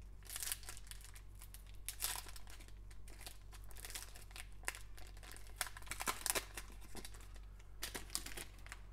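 Foil wrapper of a Panini Select basketball card pack being torn open and crinkled by hand, in irregular sharp crackles.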